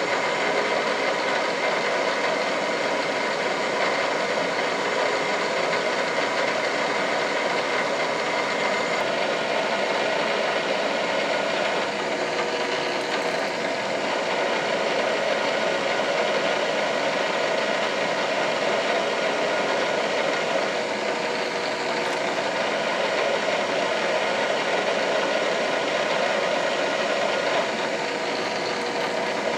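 Drill press motor running steadily while a twist drill is fed slowly down into a bronze bearing bushing, cutting with light feed pressure.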